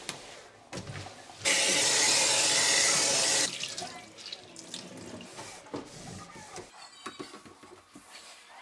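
Kitchen tap running into a stainless steel sink for about two seconds while hands rinse a cloth under the stream. After it, quieter wiping and a few light knocks in the sink.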